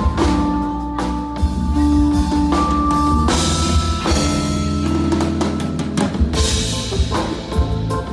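A band playing at a sound check: a drum kit keeps a beat under held guitar notes and a heavy bass line.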